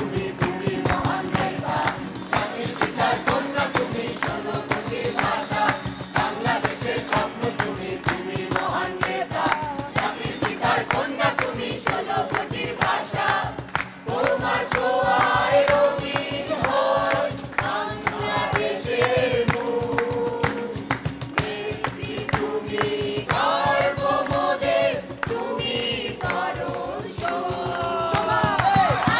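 A large mixed group singing a song together in chorus, accompanied by acoustic guitars and a cajón, with many hands clapping along on the beat.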